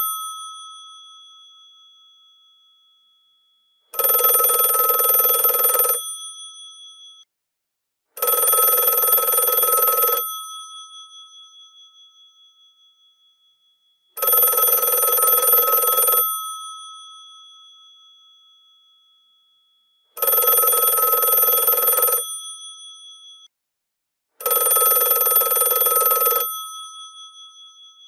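Twin electromechanical bells of a GPO 746 rotary telephone ringing in five bursts of about two seconds each, at uneven intervals. After every burst the bells ring on and fade.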